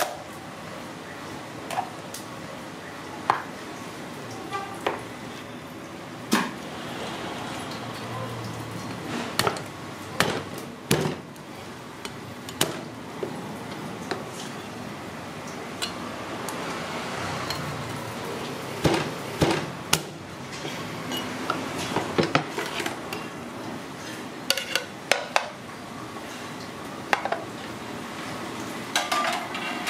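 Steel cleaver knocking and chopping on a wooden chopping block as a cooked mud crab is cut apart and its shell broken. The sharp knocks come irregularly, in clusters, over steady background noise.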